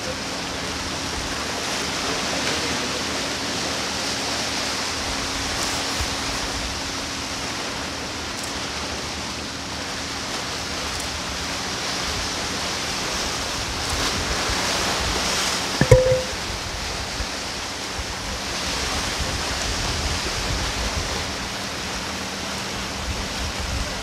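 Sea waves washing against shore rocks, a steady rush that swells and eases. A single sharp knock about two-thirds of the way through.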